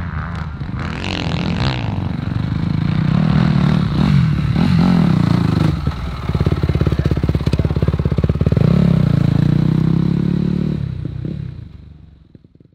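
Motocross bike engine revving hard with rising and falling pitch, dropping to a slower, lower putter around the middle, then revving up again and fading away near the end.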